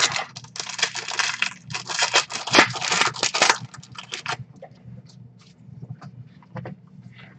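A trading-card pack's plastic foil wrapper being torn open and crinkled, a dense crackling for about three and a half seconds with a short break in the middle. After that it thins to a few light crinkles and ticks as the cards are pulled out.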